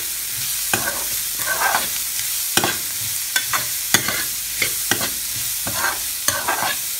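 Chopped red onions sizzling as they sauté in hot oil in a frying pan, with a metal spoon stirring them and scraping against the pan in quick irregular strokes.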